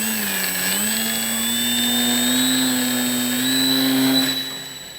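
Brushless electric motor and propeller of an FMS Ranger 1220mm RC plane running at high throttle for a hand launch: a steady whine with a thin high note above it. Its pitch creeps up slightly, then the sound drops away about four and a half seconds in.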